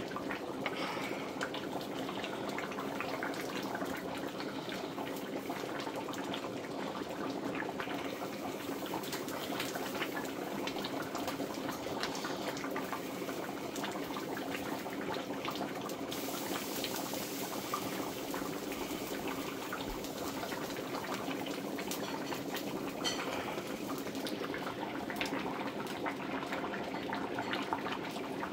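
A large pan of cassava leaf soup boiling hard, with steady bubbling and many small pops as the liquid is cooked down to boil off its water.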